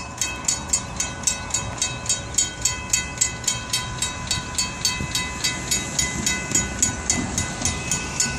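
Railroad crossing warning bell ringing rapidly and evenly, about three strikes a second, at a level crossing whose gates are down and active.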